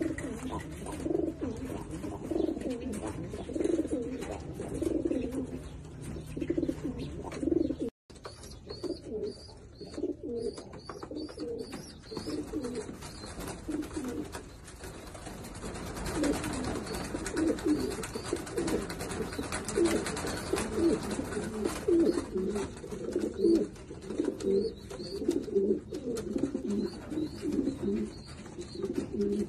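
Domestic pigeons cooing, several birds overlapping in a continuous run of low, repeated calls. The sound cuts out for a moment about eight seconds in.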